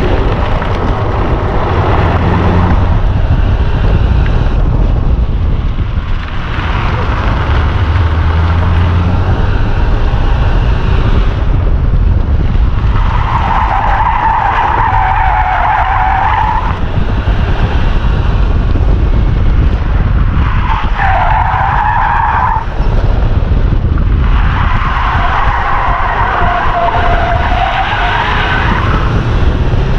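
Car tyres squealing through hard autocross corners over steady engine and road noise. There are three long squeals in the second half, each lasting a few seconds, and fainter squealing earlier on.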